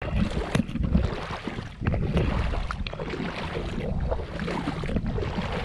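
Shallow sea water sloshing and splashing around legs wading in it, with scattered small splashes and clicks, under a rumble of wind on the microphone.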